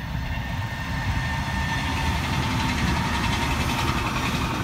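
JR 719-series electric multiple unit, two two-car sets coupled, running past: a steady rail and running noise with a thin steady whine, the hiss growing louder near the end as the train draws closest.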